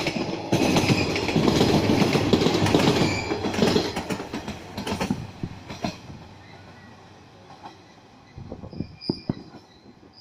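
A train running past on the rails close by, loudest in the first few seconds and then fading away. A few sharp knocks come near the end.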